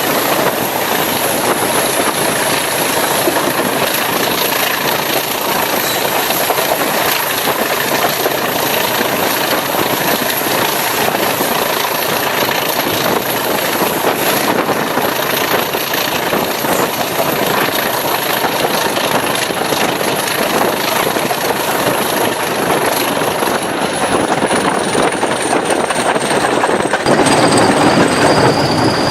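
BR Class 20 diesel-electric locomotive 20059 working hard, its English Electric eight-cylinder turbocharged diesel engine running loud and steady with a high whistle over it. Near the end the whistle falls in pitch, a second, lower whistle begins, and the sound grows a little louder.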